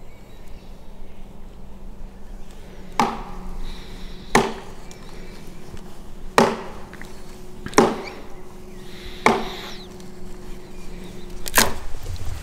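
Knife blade shaving thin curls off a wooden stick, carving a feather stick for fire kindling: six sharp strokes, one every one and a half to two seconds.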